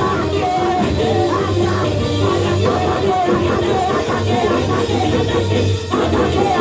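Live church praise music: a band with electric bass and keyboards playing loudly through the PA, with a lead singer on a microphone and backing singers. The sound drops out briefly just before the end.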